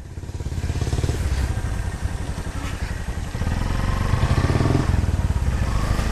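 Bajaj Pulsar NS200's single-cylinder engine running as the motorcycle rides along a muddy dirt track, getting louder about three and a half seconds in as it is given more throttle.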